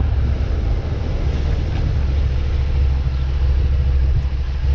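Suzuki SV650 V-twin motorcycle running at low road speed, with wind rumble on the microphone: a steady, loud low drone.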